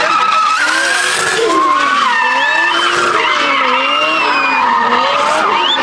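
Drift car's 2JZ straight-six engine, swapped into a Nissan Silvia S15, revving up and down over and over as the throttle is worked through a slide, with the tyres squealing throughout.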